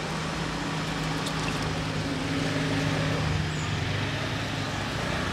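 A motor vehicle engine running with a steady low hum, its pitch dropping about three and a half seconds in, over general outdoor noise.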